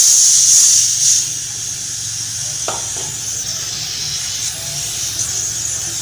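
Pressurised air from a vacuum pump hissing out of a refrigerator's copper tubing or hose, loudest for about the first second and then a steady hiss; the pump's motor hums underneath. The air is being blown through the line to check that a freshly brazed joint isn't blocked.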